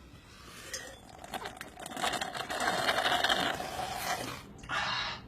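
A small mechanism running with rapid clicking and whirring, building up about a second in and loudest in the middle, followed by a short separate rush of noise near the end.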